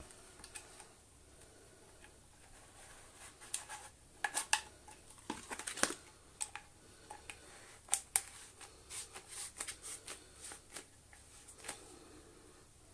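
Scattered light clicks, taps and rustles of hard plastic parts being handled: the red hose housing and spring-reinforced internal hose of a Dyson DC07 vacuum being turned over and fitted together, with the sharpest clicks around four to six seconds in and about eight seconds in.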